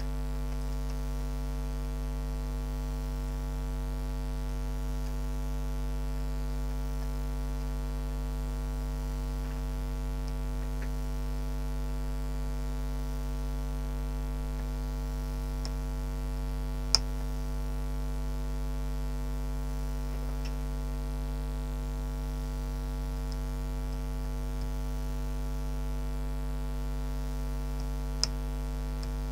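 Steady electrical mains hum, with a few faint, isolated metallic clicks from a pick and tension wrench working in a small padlock; the sharpest click comes about two-thirds of the way through.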